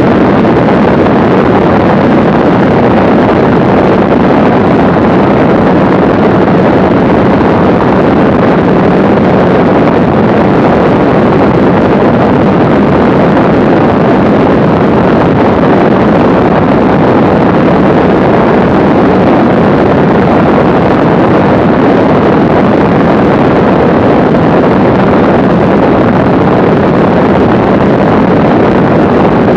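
Steady, loud rush of airflow on the microphone mixed with the drone of a Mooney M20C light plane's engine in cruise flight.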